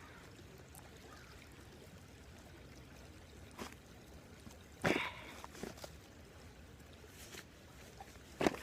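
Creek water running faintly and steadily, broken by a few brief sudden noises, the loudest about five seconds in.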